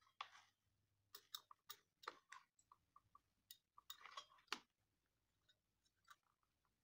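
Faint, scattered clicks and short scratchy scrapes of hand-soldering work: a soldering iron tip and solder wire being worked against a circuit board's joints, with the tools and solder spool handled between touches.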